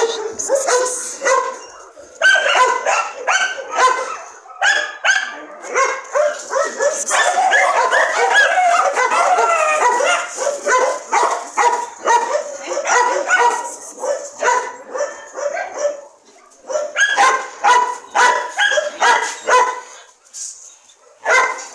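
Dogs barking over and over in short, quick barks that crowd together and overlap in the middle, with a short break about three-quarters of the way through.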